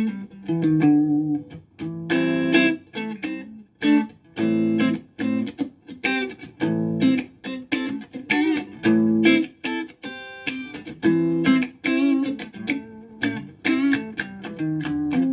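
Electric guitar, a Fender Stratocaster, played through a Marshall Valvestate VS100 amplifier: a run of strummed chords, struck about once or twice a second, some left to ring briefly, as a playing test of the amp under repair.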